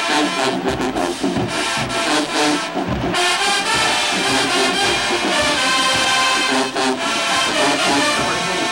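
Marching band brass section playing loudly, with trumpets and sousaphones.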